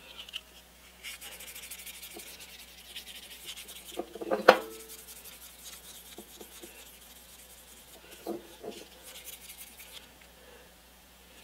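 Fine 15-micron abrasive paper rubbed rapidly back and forth inside the bore of a cast iron air-compressor cylinder, cleaning up the wear ridge left where the piston rings stop. A sharp knock comes about halfway through, and two lighter knocks come later.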